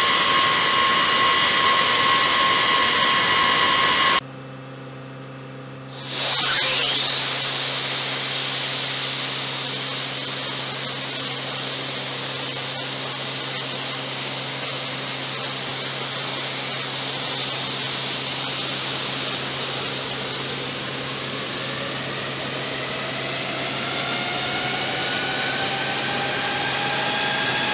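Boeing B-52 jet engines starting: a steady low hum, then about six seconds in a sudden hiss and a turbine whine that sweeps steeply upward as the engines light on a cartridge start, settling into steady jet engine noise with more whines slowly rising near the end as further engines spool up. Before that, for the first few seconds, a loud steady high-pitched turbine whine.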